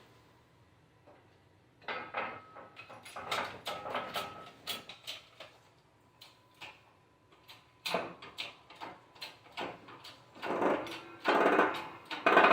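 Metal parts clinking and knocking against each other in quick clusters, with a few louder ringing metallic strikes near the end, as differential parts are handled and fitted.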